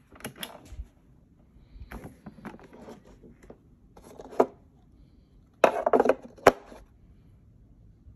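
Hard plastic clicks and knocks in four short clusters as an Infiniti G35 centre console is handled. The first cluster comes as its cupholder cover is pushed open, and the loudest knocks come about six seconds in.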